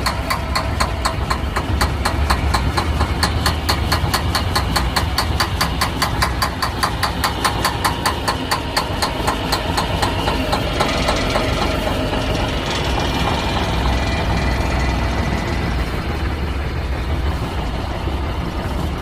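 Semi truck's diesel engine turning over with a rapid, even knock, about five a second, for the first half; after that the knock fades into a smoother, steady run.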